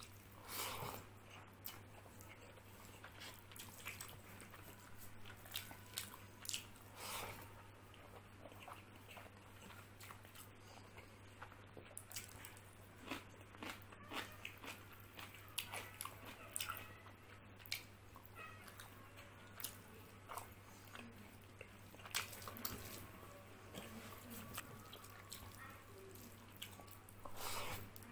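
Close-miked chewing and wet mouth sounds of rice and chickpea curry being eaten by hand: soft smacks and clicks, with a louder bite every few seconds. A low steady hum runs underneath.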